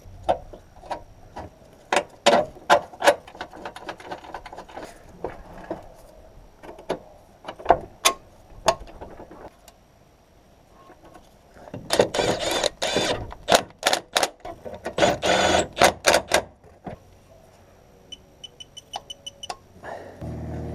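Irregular clicks and knocks of hand tools worked on the car, with two stretches of quick rattling clicks like a ratchet wrench and a short run of even ticks near the end.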